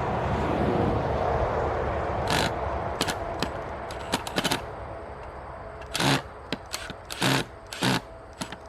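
Irregular sharp clicks and short scrapes of a screwdriver bit slipping on the old camera's mounting screws, typical of bad screws or a worn bit head. Passing highway traffic is heard at the start, then fades.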